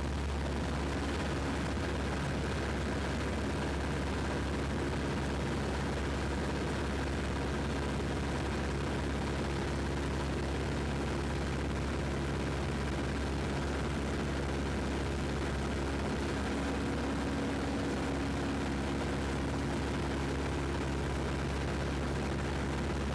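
Piper PA-17 Vagabond's engine and propeller running at steady cruise power in flight, a constant drone heard inside the small cabin.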